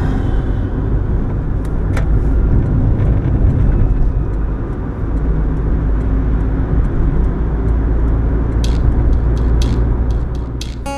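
A car driving on a city road, heard from inside the cabin: a steady low rumble of engine and tyre noise, with a few light ticks near the end.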